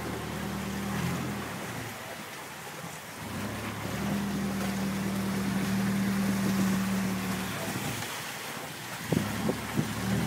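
Long-tail boat engine running at a steady low drone, easing off about two seconds in and again near eight seconds, then picking up. A few sharp knocks come near the end.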